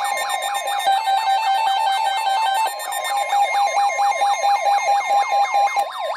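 Weather-alert alarm tones: a steady tone near 1 kHz under a siren that sweeps up and down about four or five times a second, with stepped electronic notes over them. The alarm cuts off at the end, just before the spoken warning.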